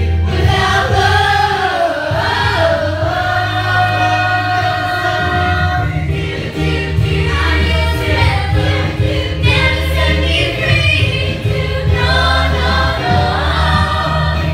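Musical-theatre song: stage performers singing over an accompaniment with a steady bass line.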